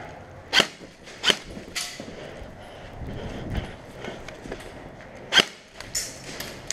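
Footsteps on a gritty concrete floor, with several sharp clacks: three in the first two seconds and two more late on.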